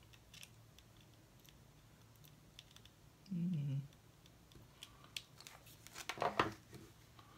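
Faint scattered clicks and rustling as a USB cable and its plug are handled and pushed into a quadcopter's flight controller. A short low hum of a voice comes about three seconds in.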